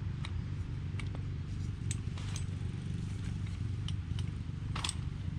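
Scattered light clicks and taps of a folding camp chair's frame poles being handled and slotted into its hub, the sharpest click a little before the end, over a steady low rumble.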